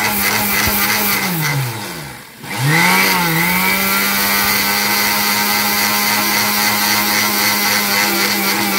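Electric mixer grinder with a steel jar dry-grinding roasted rice, urad dal and spices into powder. The motor runs at a steady pitch, winds down and stops about two seconds in, then starts again, spins back up and runs steadily.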